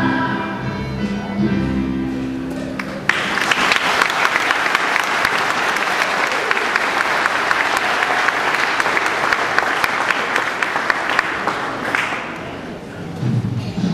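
A children's choir's singing with accompaniment fades out over the first few seconds, then an audience applauds for about nine seconds before the clapping dies away. Music starts again near the end.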